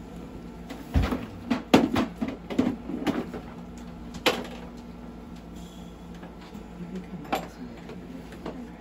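A run of sharp clicks and knocks from handling around the operating table, several close together about a second in and a couple more later, over a steady low hum of equipment.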